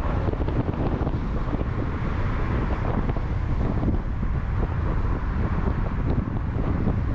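Wind buffeting the microphone, a steady rushing noise heaviest in the low end.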